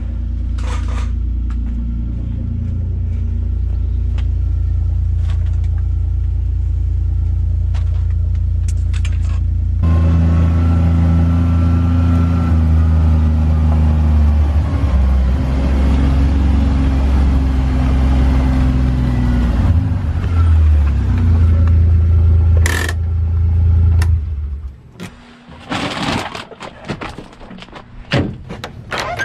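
Side-by-side utility vehicle's engine running, then driving, its pitch rising and falling. It shuts off near the end, followed by a few clunks.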